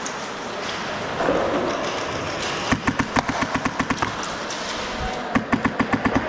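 Airsoft rifle firing two bursts of rapid shots, about seven a second: the first a little under three seconds in, lasting just over a second, the second near the end.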